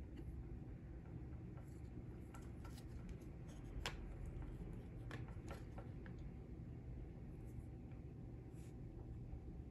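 Faint scratching of a marker drawing layout lines on a bowling ball, with light clicks and taps of a clear plastic layout template against the ball; the sharpest click comes about four seconds in. A low steady room hum runs underneath.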